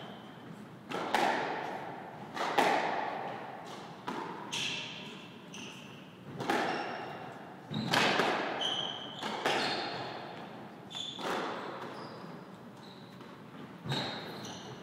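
Squash rally: the ball is struck by racquets and smacks off the court walls about every one to two seconds, each hit echoing in the court. Short high squeaks, typical of court shoes, sound between the hits.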